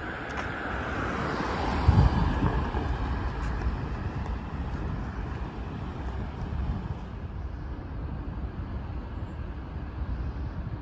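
Road traffic: a vehicle passes close by about two seconds in, its noise falling in pitch as it goes, then a steady low traffic rumble.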